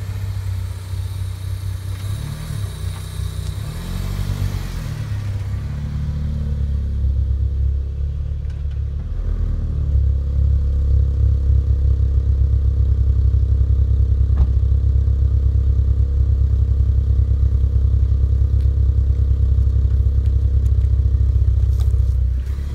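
Honda Civic four-cylinder engine running at low speed. Its pitch rises and falls a few times in the first seconds, then it settles into a steady, louder idle from about ten seconds in.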